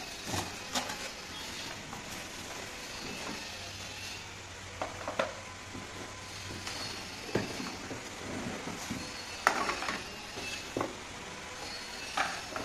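Plastic bags and cardboard packaging rustling and crinkling as the parts of a cordless stick vacuum cleaner are taken out of the box, with several short knocks as the wrapped parts are set down on a tiled floor.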